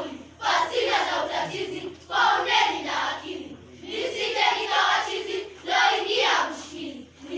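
A group of children chanting loudly in unison, a shouted phrase about every one and a half to two seconds.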